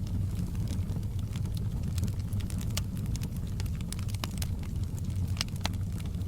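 Wood fire burning in a fireplace: a steady low rumble of the flames with scattered sharp crackles and pops from the logs at irregular intervals.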